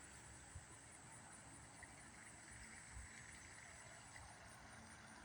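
Near silence: a faint, steady background hiss with no siren sounding.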